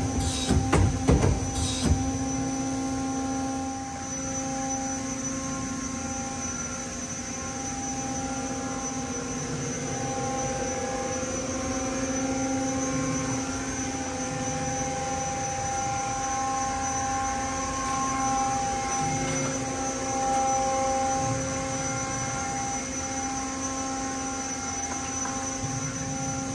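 Mazak SQT-200 CNC lathe, powered up: a clattering indexing of the tool turret in the first two seconds, then the machine's steady hum with several held tones.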